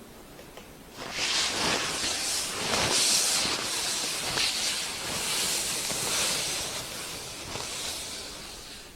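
Loud hissing that starts suddenly about a second in, wavers, and dies away near the end.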